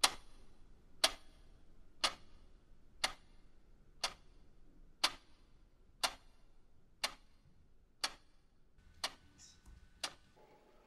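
Quartz wall clock ticking: sharp, even ticks, one each second.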